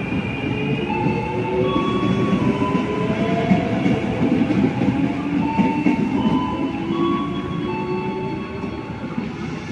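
KRL electric commuter train running along the platform, with a heavy rumble of wheels and motors and a whine of several tones that slowly rise in pitch as it picks up speed.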